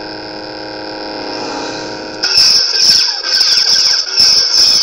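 Custom lightsaber's Crystal Focus v5 soundboard playing the Mad Cow's Hero sound font: a steady electric hum, then, about two seconds in, much louder swing and clash effects with sweeping pitch and several sharp hits as the hilt is moved.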